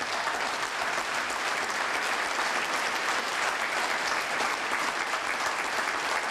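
Audience applauding: steady, dense clapping that holds at an even level.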